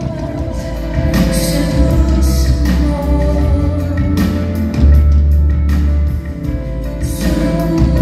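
Live band performance heard from the audience: a woman singing over keyboard, heavy sustained bass notes that change every couple of seconds, and drums with cymbals.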